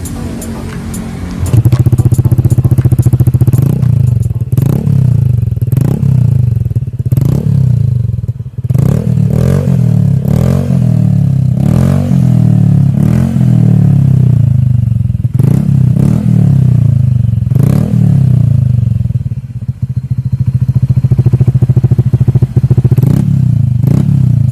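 Honda ADV150 scooter's 149cc single-cylinder four-stroke engine running through an unbranded aftermarket exhaust. It idles, then is revved in a string of quick throttle blips, roughly one a second, and settles back to a steady idle near the end.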